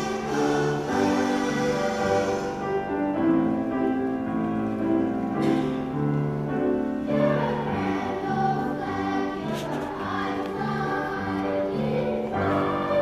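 Boys' choir singing in unison, moving through a line of held notes.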